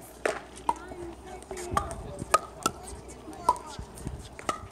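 Pickleball paddles striking a hollow plastic pickleball: a string of sharp pops, about seven, irregularly spaced, the loudest about two and a half seconds in.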